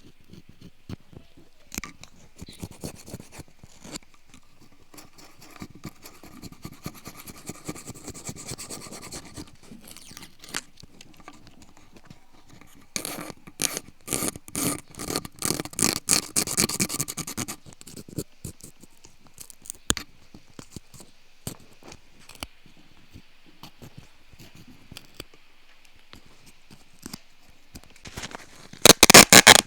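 Close-up scraping and scratching of a bamboo ear pick working earwax in an ear canal: irregular crackles and rasps, with a denser run of scraping in the middle and a brief louder rasp near the end.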